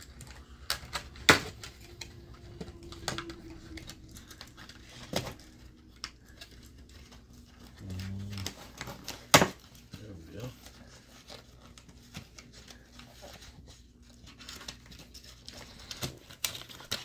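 Twine ties being cut out of a cardboard toy tray, with cardboard handling and rustling and a few sharp snips or clicks: one about a second in, one about five seconds in and the loudest about nine seconds in.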